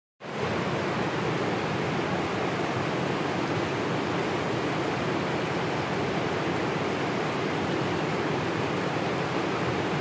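Steady rush of river water pouring over a low weir, a constant full-bodied roar without breaks.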